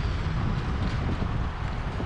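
Wind buffeting the microphone of a camera carried on a moving bicycle: a steady, low rush of noise with no distinct events.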